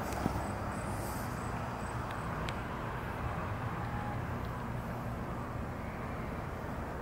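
Steady low outdoor background rumble, with a light bump just after the start and a few faint ticks.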